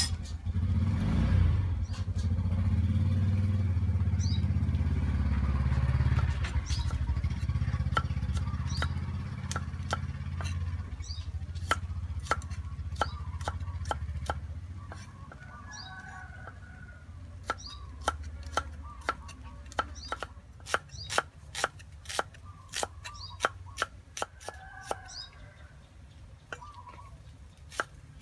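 A motor vehicle's engine rumbles steadily through the first half and dies away about halfway through. A cleaver then chops garlic and shallots on a round wooden chopping block, sharp knocks that grow louder and come about two a second toward the end.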